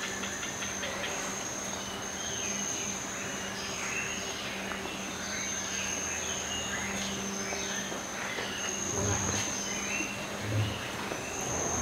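Tropical insects trilling in a steady, high-pitched tone that swells and fades in stretches, with many short falling chirps over it. There are two soft low thumps near the end.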